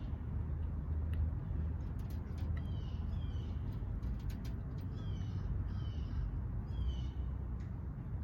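A bird repeating short, high chirps that fall in pitch, one every second or two, over a steady low rumble.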